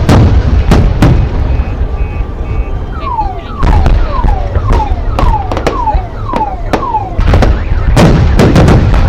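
Fireworks display going off: repeated sharp bangs of bursting shells over a low rumble. In the middle comes a run of about six falling whistles, roughly two a second.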